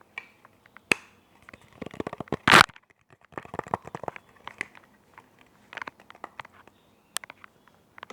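Close-up crackling, crinkling and clicking made right against a headset microphone, in irregular bunches, with the loudest crunchy burst about two and a half seconds in.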